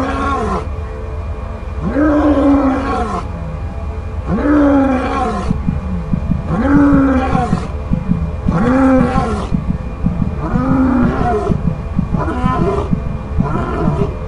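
Deep, drawn-out roars of a large animal, one about every two seconds, each falling in pitch. From about twelve seconds in they turn shorter and come faster. A steady low rumble runs underneath.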